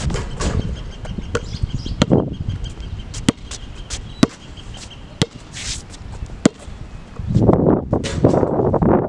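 A basketball bouncing on an outdoor hard court: sharp single bounces, roughly one a second, as it is shot and dribbled. A rushing noise rises about seven seconds in.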